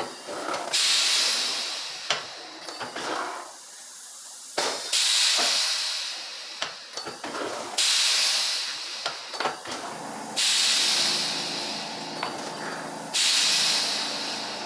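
Compressed air hissing in repeated bursts, each starting abruptly and fading, about every three seconds. A steady low hum joins about ten seconds in.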